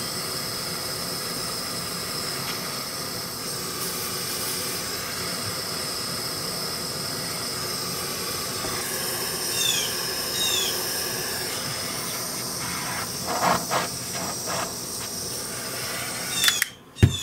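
Gas torch flame hissing steadily while heating a joint on a brass saxophone body for soldering, then shut off suddenly near the end, with a sharp click just after. A few short squeaks and light taps are heard midway.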